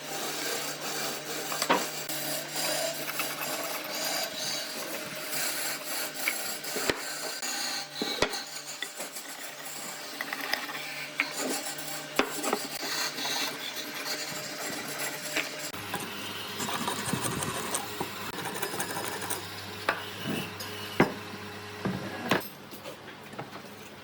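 Wood being rasped and rubbed by a tool, a dense scratchy sound with scattered knocks, over the steady hum of a woodworking machine's motor that drops in pitch about two-thirds of the way through.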